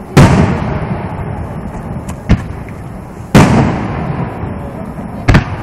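Aerial firework shells bursting overhead, picked up by a smartphone microphone: a loud boom just as it begins and another a little past halfway, each trailing off with a long rumble. Two shorter, sharper cracks fall between them.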